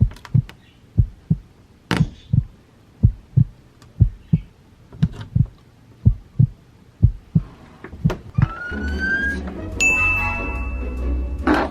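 Heartbeat sound effect: a low double thump about once a second. After about eight seconds it gives way to swelling suspense music with a held high tone, which ends in a loud crash.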